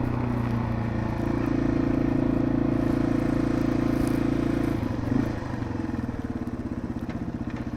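Yamaha TW200's single-cylinder four-stroke engine running as the bike is ridden, steady and a little louder through the middle. About five seconds in it drops back to a quieter, slower, pulsing beat.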